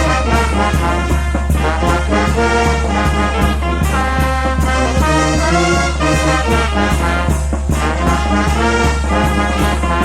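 Peruvian brass band playing: trumpets and trombones carry the tune over a steady percussion beat.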